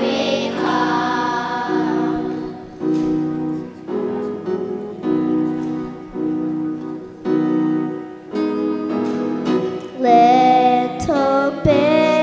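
Keyboard accompaniment playing a steady run of sustained chords, about one a second; near the end a singing voice comes in with held notes.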